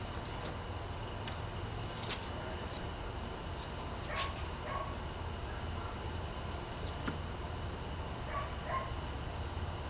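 Faint ticks and scrapes of a pocket knife cutting a flounder fillet free along the backbone over a steady low outdoor rumble. Two pairs of short animal calls come about four and eight seconds in.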